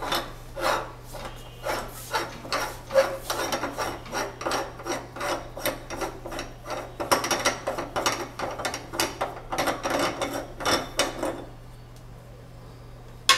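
Fingers scraping and rubbing chocolate paste off a meat grinder's perforated metal plate: a long run of short scraping strokes that come faster and closer together in the second half, stopping about two seconds before the end. A single sharp click comes right at the end.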